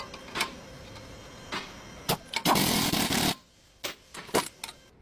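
Clinks and knocks of tools on metal car parts, with one short, loud burst of noise about two and a half seconds in.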